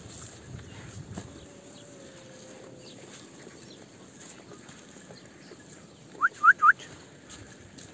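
A bird gives three quick, short rising chirps about six seconds in.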